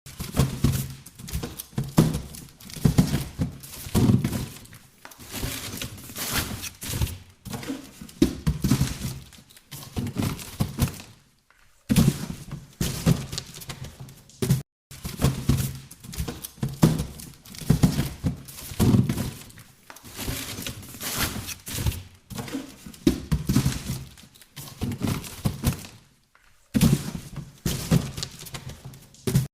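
Boxes being handled and shifted about, a near-continuous run of thuds, knocks and rustling scrapes with a few short pauses.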